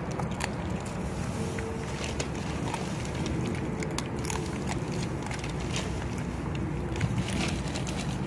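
Dog chewing a whole halibut, irregular crunches and crackles as it bites through the fish, over a steady low rumble.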